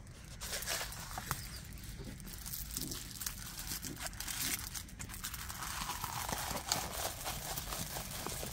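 Rustling and crinkling of a rolled diamond-painting canvas and its film cover as hands unroll it and smooth it flat, with many small clicks and taps.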